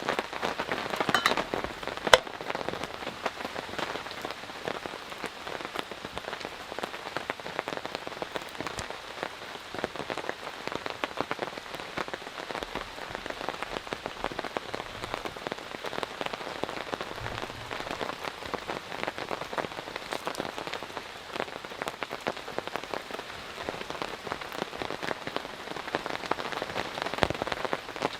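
Heavy rain falling steadily: a dense patter of many individual drops striking a surface, with one sharper, louder tap about two seconds in.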